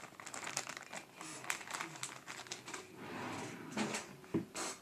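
Rustling and many light clicks from small plastic craft items being handled on a table, with a dull knock about four seconds in.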